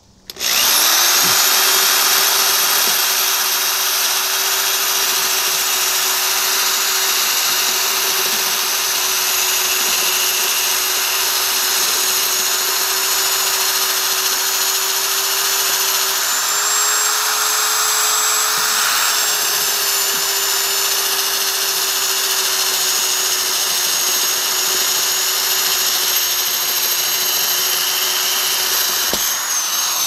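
Corded electric drill, used without hammer action, boring into a stucco wall: the motor starts just after the beginning and runs at a steady pitch with a gritty grinding under it, rising slightly in pitch midway. It cuts off near the end and winds down.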